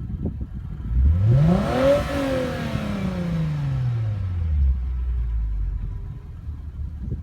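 2014 Lexus IS250's V6 with an Invidia Q300 axle-back exhaust, idling, then revved once. The pitch climbs quickly for about a second, falls more slowly back to idle over the next two and a half seconds, and the engine settles into a steady low idle.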